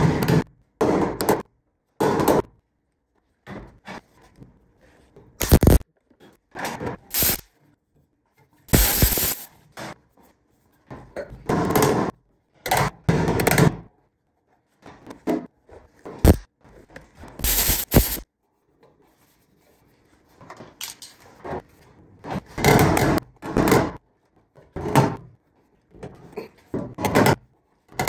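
Steel-headed hammer tapping a round steel plug plate into the sheet-metal corner of a 1967 Chevy C10 cab, over the old fuel-filler hole, in runs of quick blows with pauses between.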